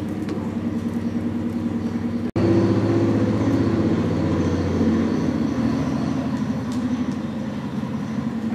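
A steady low mechanical hum with a rumbling undertone. It drops out for an instant a little over two seconds in, then comes back slightly louder.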